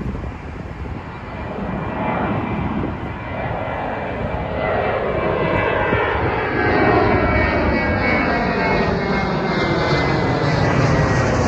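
Jet airliner departing: engine rumble swelling as it climbs out toward and over the listener, loudest from about seven seconds in, with a sweeping, falling tone and a faint high whine.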